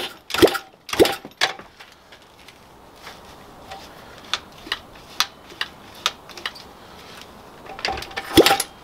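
Pit bike's single-cylinder engine being kick-started and turning over without firing, with almost no fuel in the tank. Sharp strokes come three times in the first second and a half, light clicks follow for a few seconds, and the kicking resumes near the end.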